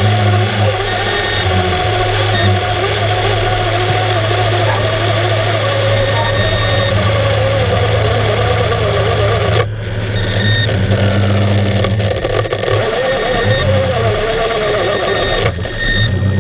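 Steady low machine hum with a higher wavering whine, heard underwater; the higher part briefly drops out about ten seconds in and again near the end.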